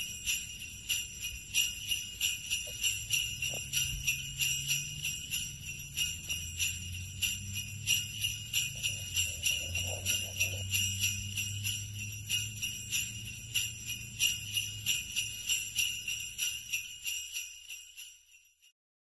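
Sleigh bells jingling in a steady rhythm, about three shakes a second, slowly fading away until they stop near the end.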